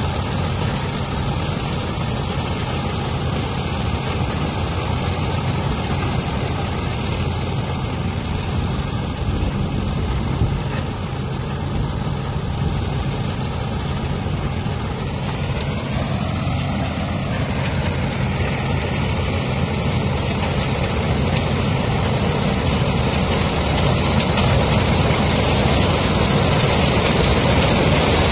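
John Deere 5310 tractor's three-cylinder diesel engine running steadily at working revs, driving a tractor-mounted harvester as it cuts dry maize, with the harvester's machinery noise over the engine hum. It grows louder near the end as the machine comes close.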